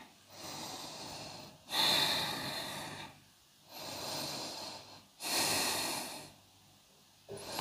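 Yoga instructor breathing slowly and deeply on a cued inhale and exhale, four breath sounds in two full in-and-out cycles, the second and fourth louder than the first and third.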